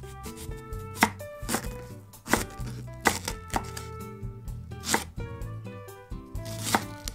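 A kitchen knife cutting daikon radish on a cutting board: about seven sharp knife strikes at uneven intervals, over light instrumental background music.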